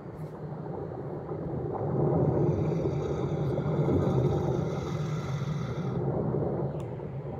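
Animated-film sound effect of an underwater stream current: a low rumbling rush of water with a hiss on top. It swells over the first two seconds and eases off after about six.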